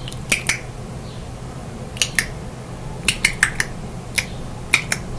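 Tongue clicks tapped out as Morse code: about eleven sharp clicks in irregular groups, mostly pairs, with a quick run of four a little past the middle.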